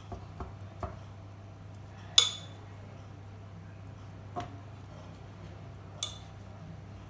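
A spoon clinking against a metal muffin tin as vegetables are spooned into its cups: a few light taps, then a sharp ringing clink about two seconds in and two more later.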